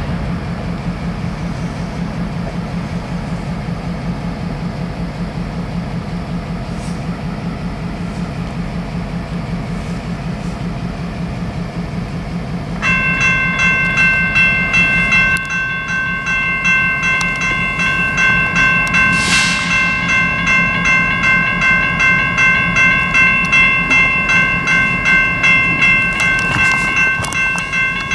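BNSF GP38-2 diesel-electric locomotive's EMD two-stroke engine running with a low, pulsing rumble as the locomotive approaches slowly. About halfway through, a grade-crossing warning bell starts ringing over and over and stays the loudest sound, with a brief hiss partway through.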